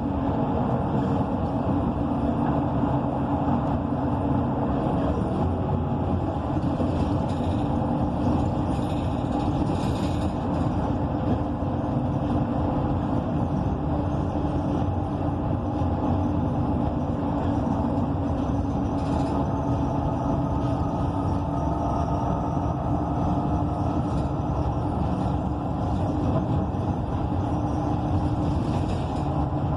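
Inside a 2014 ENC EZ Rider II transit bus under way: the Cummins Westport ISL G natural-gas engine and Allison B300R transmission run with a steady rumble, mixed with road noise, at an even level throughout.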